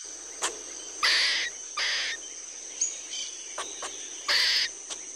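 Squirrel calls: three short raspy chirps, about a second in, about two seconds in, and just past four seconds, with a few sharp clicks between. They sit over a steady high insect drone from a jungle ambience.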